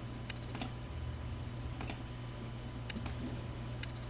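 Several sparse, sharp clicks at a computer, the mouse and keys working the random.org list randomizer, over a steady low hum.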